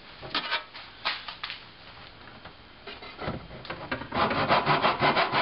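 A few light knocks as a piece of 1/4-inch MDF is set in a plastic miter box, then a handsaw starts cutting it about four seconds in, with fast, even back-and-forth strokes.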